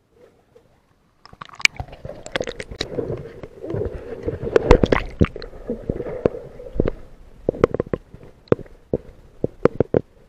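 Water moving against an action camera's waterproof housing underwater: a muffled gurgling rumble with many sharp clicks and knocks, starting about a second in.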